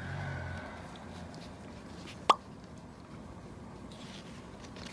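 A single short, sharp ferret sneeze about two seconds in.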